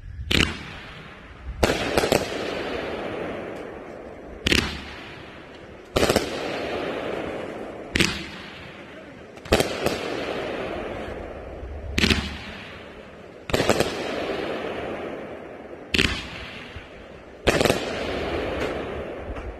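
Freedom Rider 500 g consumer fireworks cake firing its shots one after another: about a dozen sharp bangs, one every second and a half to two seconds, each followed by a fading rush of sound from the burst.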